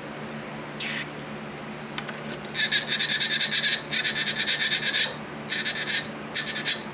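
Aerosol contact cleaner hissing from its nozzle as it is sprayed into the tape deck's control potentiometers: one short burst about a second in, then four longer bursts starting about two and a half seconds in.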